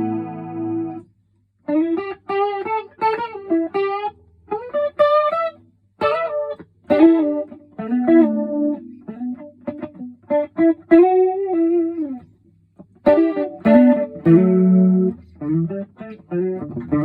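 Electric guitar, a PRS SE Custom 24, played through a BOSS DC-2 Dimension C chorus on its fourth setting into a Vox AC30 amp. A held chord cuts off about a second in; after a short pause come single-note melodic phrases with wavering, bent notes, and fuller chords return near the end.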